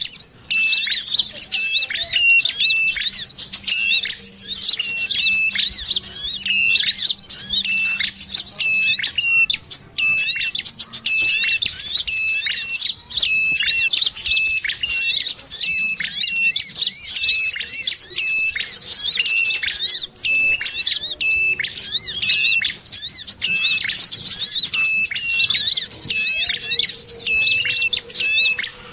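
Bird-lure ('pikat sogon') recording of small birds' alarm chatter: a dense, continuous high twittering. Through it, a short lower call repeats at a steady pace, one to two per second. The calls are of a red-headed prinia (prenjak kepala merah) and a brown-throated sunbird (kolibri kelapa), looped to draw wild birds in.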